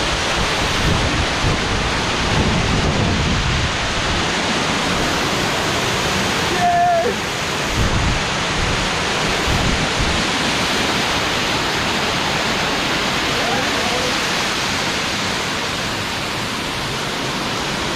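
Small waterfall's water rushing steadily, with a brief high-pitched call about seven seconds in.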